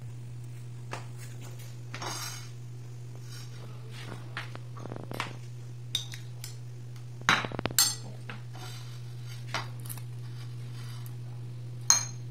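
A spoon clinking and scraping against a ceramic bowl and plate as sauce is spooned onto a tortilla, with a cluster of sharper knocks about seven to eight seconds in and another near the end. A steady low hum runs underneath.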